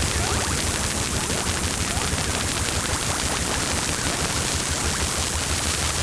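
Experimental noise music: a dense wall of static-like hiss with fast, fine crackling over a fluttering low rumble, at an even level.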